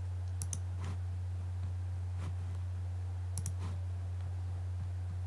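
A handful of scattered computer mouse clicks as a music producer works in Ableton Live between playbacks, over a steady low hum.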